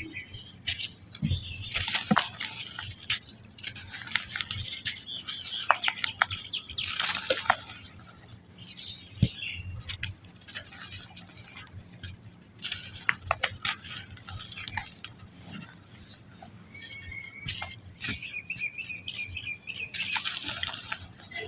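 Balls of soft, dry black sand crumbling apart by hand: repeated bursts of grainy crackling and sharp little clicks as the clumps break and fall, with short pauses between handfuls.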